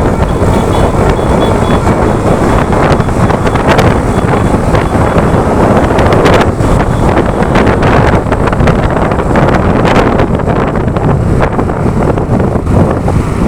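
Wind buffeting the microphone over the steady rumble of a road vehicle on the move.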